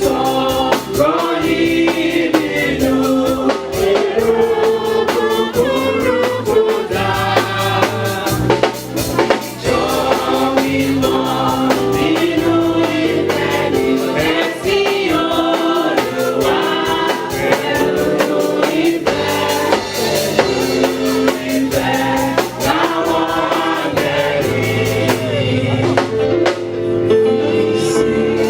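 A choir singing a gospel song with keyboard accompaniment and a steady drum beat.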